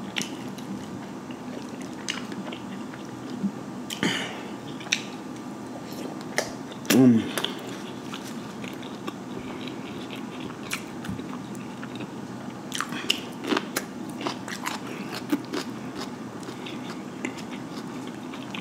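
A man chewing and smacking his lips as he eats a seafood boil of shrimp, sausage and egg, with sharp wet smacks scattered throughout. About seven seconds in comes a short hum of the voice, the loudest moment.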